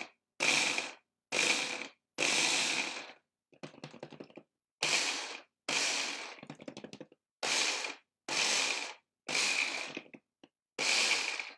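Electric hand-blender chopper attachment pulsed about a dozen times in short bursts of half a second to a second, each a high motor whine that stops dead between presses. It is chopping spinach leaves in short pulses so they shred rather than turn to purée.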